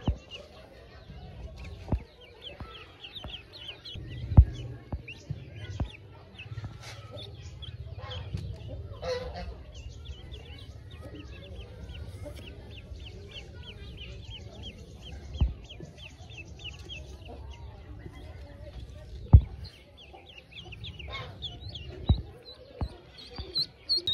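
Newly hatched Pekin ducklings peeping, a steady stream of quick, high cheeps, over low handling rumble. A few sharp knocks stand out, the loudest about four seconds in and again near nineteen seconds.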